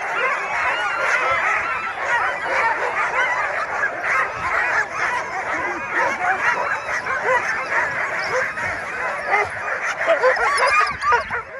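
A chorus of Alaskan husky sled dogs barking and yelping excitedly in harness, many at once and without a break: the eager din of a team pulling to get going at a race start.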